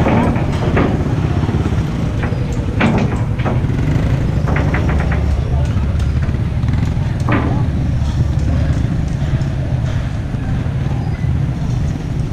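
Street traffic of motorcycles and motorcycle-sidecar tricycles, a steady low engine rumble, with people's voices and a few sharp knocks mixed in.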